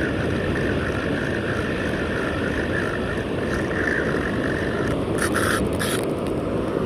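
Steady rumble and hiss of a boat at sea, with wind on the microphone and a steady whine over it. A few short, harsh bursts of hiss come in about five seconds in.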